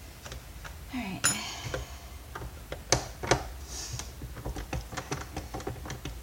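Small clicks and ticks of a screwdriver backing Torx screws out of a vacuum cleaner's plastic housing, with two sharper clicks about three seconds in and a quick run of light ticks after that.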